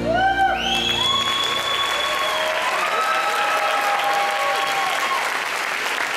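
Audience applause with cheering whoops that rise and hold for a second or two. It breaks out just as the music stops.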